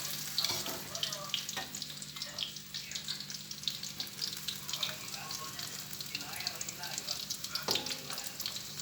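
Jackfruit pieces frying in hot oil: a steady sizzle with dense crackling pops. A couple of sharp knocks, about one and a half and seven and a half seconds in.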